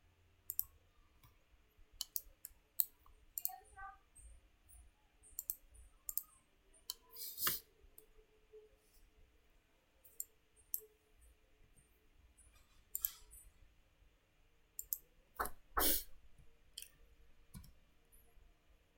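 Computer mouse clicks and keyboard keystrokes, scattered and irregular, with a few louder clicks.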